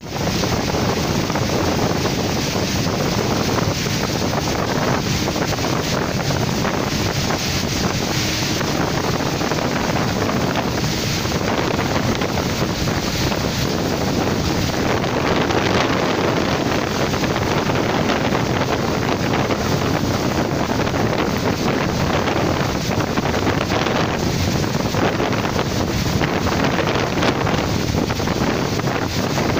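Heavy rain and wind making a steady rushing noise, with wind buffeting the microphone. Under it runs the low drone of a 50-ton dump truck's diesel engine, labouring up a wet incline.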